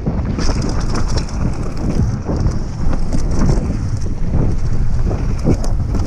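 Wind buffeting the microphone and knobby tyres rolling fast over loose dirt and gravel on a Scott Gambler downhill mountain bike, with a steady run of clicks and rattles from the bike and the stones.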